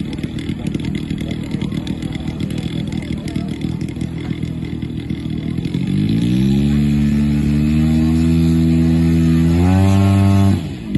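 Gasoline engine of a large radio-controlled model airplane running, revved up about six seconds in and held at a steady high speed. It is pushed a little higher near the end, then throttled back sharply and opened up again.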